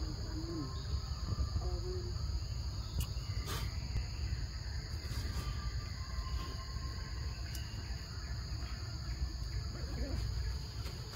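A steady, high-pitched drone of insects over a low rumble, with a couple of faint clicks.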